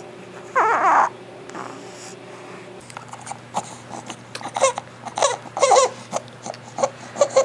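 Newborn with laryngomalacia making noisy, squeaky stridor sounds: one loud falling squawk about a second in, then a quick run of short high squeaks from about three seconds on. This is the inspiratory stridor of a soft, floppy larynx folding over the airway, loudest when he is awake and excited.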